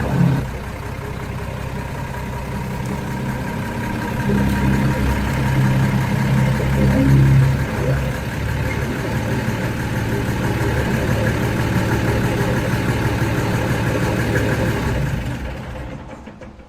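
Mercedes Unimog 416's OM352 six-cylinder diesel engine running steadily, then fading out near the end.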